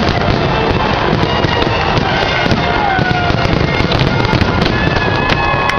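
Fireworks display going off densely: a constant din of bangs and rapid crackling. Thin whistle-like tones are held or glide down here and there over it.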